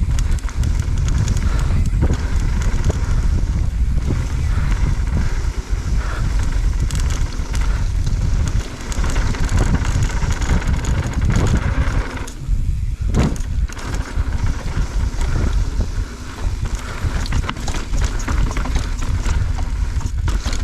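Wind buffeting an action camera's microphone during a mountain-bike descent, with tyre noise and rattling knocks from the bike over rough ground. There is a brief lull about thirteen seconds in.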